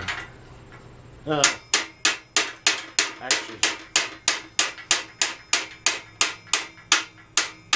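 Small hammer tapping a roll pin into the steel frame of a Black and Decker Workmate 225 workbench: a steady run of sharp taps, about three a second, starting about a second and a half in.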